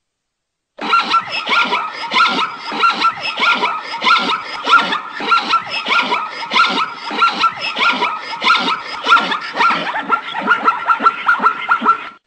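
A zebra giving its barking call, a quick run of short yelping barks repeated two to three times a second. It starts suddenly about a second in and stops just before the end.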